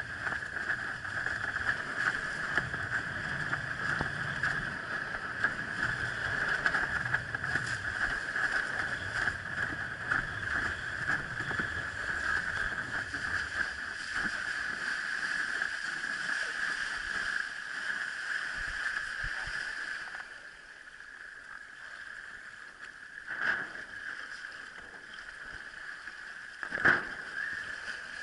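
Windsurf board planing fast over choppy water: a steady rush of water and wind. It drops quieter about two-thirds of the way through as the board slows, and two brief thumps come near the end.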